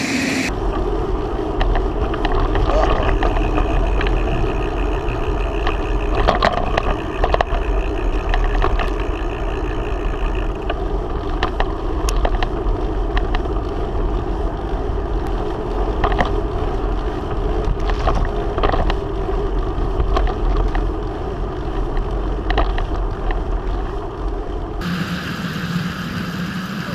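Steady wind rumble on a GoPro action camera's microphone while riding a bicycle, with road noise and scattered short clicks and rattles from the bike.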